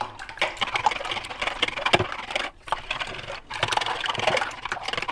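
Wire whisk beating raw eggs in a plastic bowl: a rapid run of clicks and taps as the wires strike the bowl, with a couple of brief pauses and one sharper knock about two seconds in.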